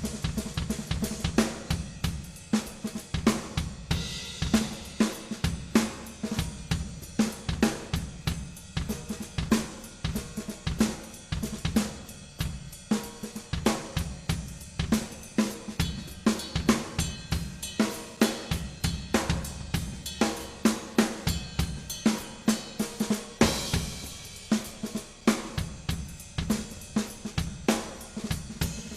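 Background music driven by a drum kit, with snare, cymbals and hi-hat keeping a steady beat.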